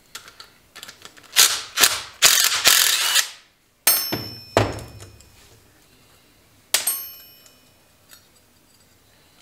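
Cordless impact driver hammering in several short bursts, the longest about a second, as it loosens the bolts on a power steering pump bracket. Then metal parts clank down twice with a ringing clink, about four and seven seconds in.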